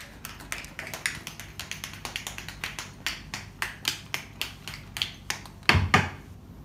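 Tap shoes striking the floor in an a cappella tap dance, with no music: a quick, irregular run of sharp taps at about four to five a second, ending in two heavy stomps near the end.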